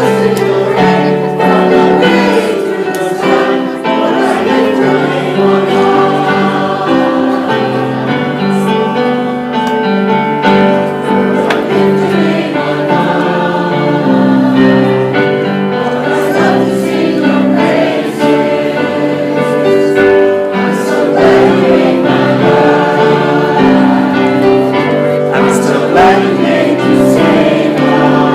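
Church choir singing a hymn.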